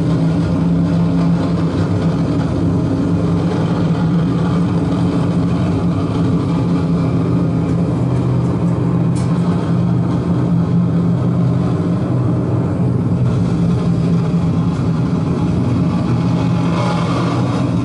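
Dark ambient noise drone played live: a loud, steady low drone made of a few held tones under a dense layer of noise, with higher held tones coming in near the end.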